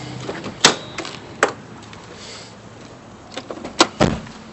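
Sharp latch clicks and knocks of a car being opened up, with a low thud about four seconds in, like a door or lid dropping shut.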